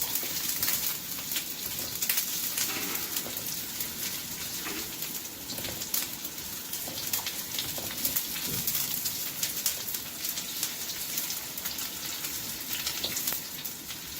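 Ginger frying in hot oil in a pan, a steady sizzle full of small crackles.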